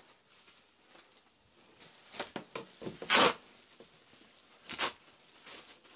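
Rustling and ripping of a large woven plastic sack being torn open by hand, with one loud rip about three seconds in and a shorter one a second and a half later.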